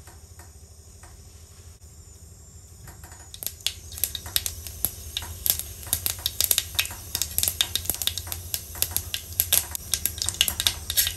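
Mustard seeds spluttering in hot oil in a clay pot. Quiet at first, then from about three seconds in a dense, irregular crackle of sharp pops that keeps going: the popping that shows the oil is hot enough for the tempering.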